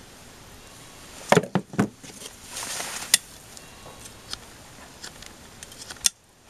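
Handling noise from trimming a mouflon sheep's hoof with hoof nippers while the sheep is held in a tip crush. Three quick knocks come about a second and a half in, followed by a brief scraping rustle and scattered sharp clicks. Near the end a sharp click is followed by the sound dropping out abruptly.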